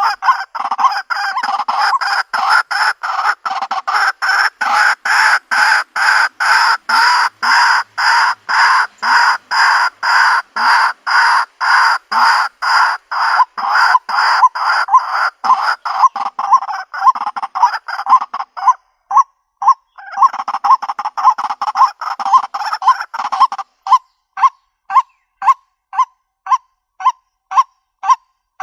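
White-breasted waterhen calling: a loud, monotonous series of honking notes at about two a second. The series breaks off briefly two-thirds of the way through, then resumes with shorter, clipped notes.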